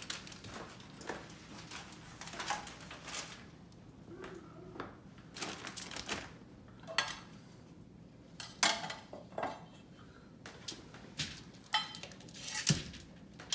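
Metal tongs and a spatula clinking and scraping while handling a slab of smoked baby back ribs on aluminium foil: a scattered run of short clicks and rustles, with a louder thud near the end as the rack is set down on the foil.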